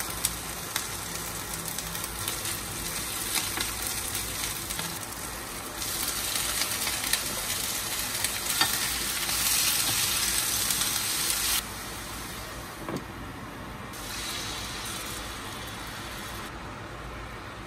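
Food sizzling as it fries in a pan and is stirred, with a few sharp clicks; the sizzle jumps up and down in loudness several times.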